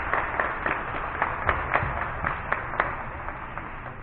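A group clapping in a steady rhythm, about three to four claps a second, fading out near the end.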